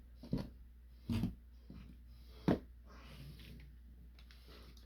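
Plastic transforming-toy parts knocking lightly as they are handled and set down: a few short clicks spread over a couple of seconds.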